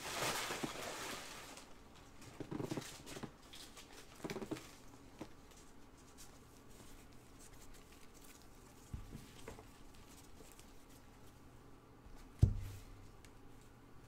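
Stacks of trading cards handled in gloved hands: soft rustling and quick flicking patter as the cards are shuffled, a few light taps, and one sharp thud near the end as a stack is knocked down on the table.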